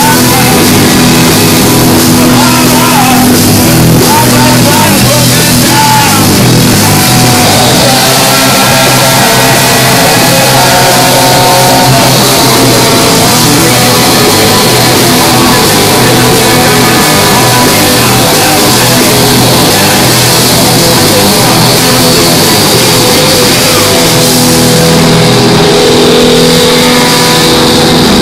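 Live rock band with electric guitar and saxophone playing loud, unbroken music.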